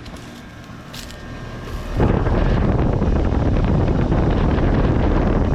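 Air-conditioning condenser unit with a Copeland reciprocating compressor running. About two seconds in, the rush of its fan's discharge air suddenly blasts over the microphone and stays loud and steady, covering the unit's hum.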